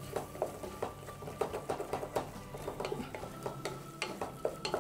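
A wooden spatula stirs and scrapes a thick tomato-and-spice mixture around a stainless steel pot, making many quick, irregular taps and scrapes against the metal.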